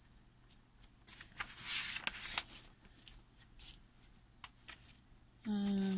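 Paper and plastic packaging being handled in spurts, soft rustling and crinkling with small clicks, as a printed inventory sheet is sorted through. Near the end a short hummed voice sound.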